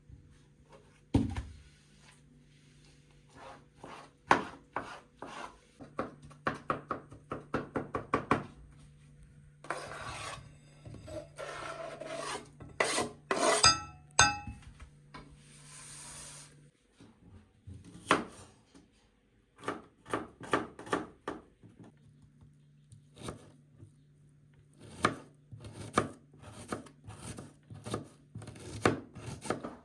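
Food prep by hand at a wooden board: quick runs of rasping, cutting strokes, several a second, with pauses between runs. Around the middle come a few ringing clinks of dishes or utensils and a short hiss.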